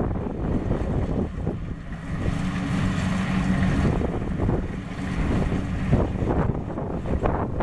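Kubota DC-70 Plus combine harvester running steadily under load as it cuts and threshes rice, its diesel engine humming continuously under the clatter of the machine.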